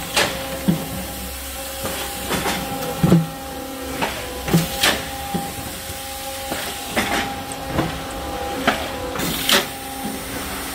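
Armac in-line thermoforming machine running: a steady mechanical hum with hiss, punctuated by repeated metallic knocks and clanks from the presses, coming about once or twice a second at irregular spacing, the loudest about three seconds in.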